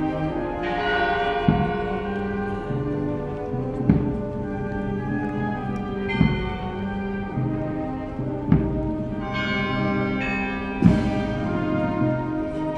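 Brass marching band playing a slow funeral march, with a heavy drum and cymbal stroke about every two and a half seconds.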